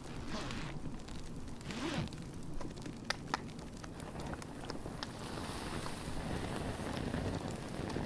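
Wood campfire burning and crackling, with two sharp pops about three seconds in; a steady hiss thickens from about five seconds in.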